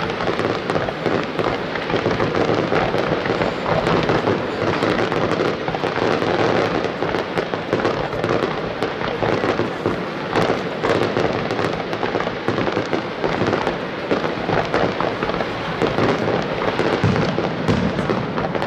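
Aerial fireworks display: a continuous barrage of shells bursting and crackling, rapid pops and bangs running into one another with no let-up.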